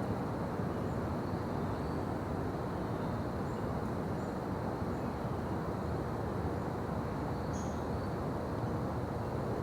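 Daytime forest ambience: a steady low rumble of background noise with a few faint, short bird chirps, one a little clearer about three-quarters of the way through.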